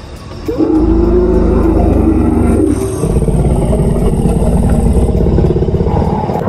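Life-size animatronic Tyrannosaurus rex roaring through its loudspeakers: a loud, deep roar begins about half a second in, breaks off briefly near the middle, then a second roar follows and ends sharply near the end.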